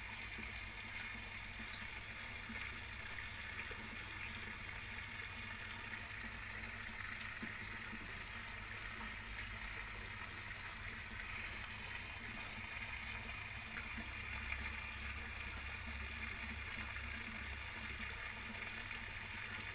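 Steady, even rush of water, with a low hum beneath it.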